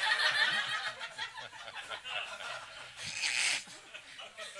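Audience laughing at a punchline. The laughter is loudest in the first second and swells again about three seconds in.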